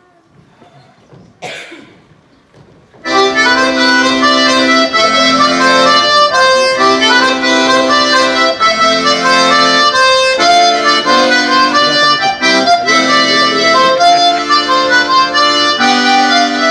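After a quiet start, an accordion strikes up a Breton dance tune about three seconds in and plays on in sustained, changing chords.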